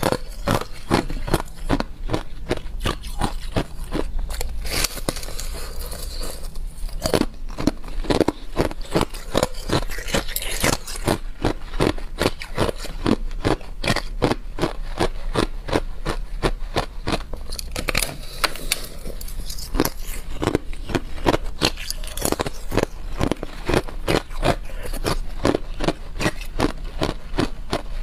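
A person biting and chewing a block of frozen ice: rapid crunches and cracks of ice between the teeth, about three a second.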